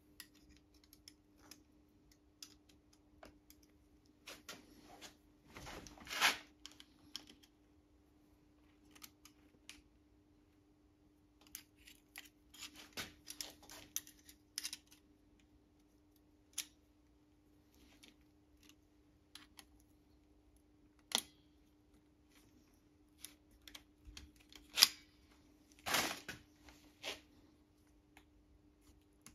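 Scattered small clicks and taps of metal parts being handled as a ringed piston is worked by hand into an engine block's cylinder bore, a few of them louder knocks, over a steady low hum.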